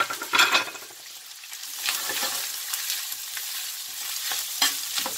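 Shredded beef sizzling in pork lard in a stainless steel frying pan, frying so that it browns. A utensil scrapes and knocks against the pan a few times as the meat is stirred.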